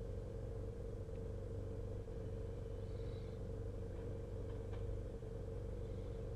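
Steady low engine hum of a vehicle idling, heard from inside its cab.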